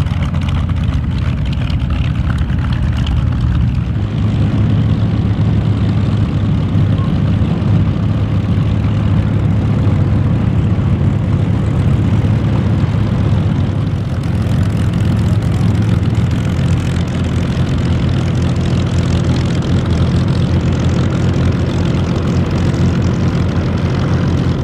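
Curtiss P-40 Warhawk's Allison V-12 engine running steadily at low power on the ground, a deep, even propeller-engine drone.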